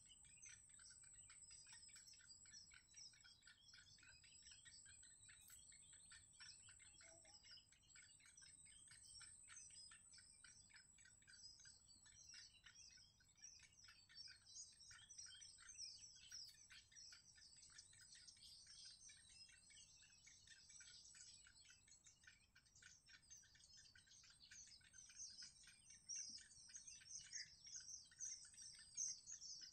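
Faint, rapid high-pitched chittering of yellow bittern chicks begging for food, a dense stream of short cheeps that grows louder near the end.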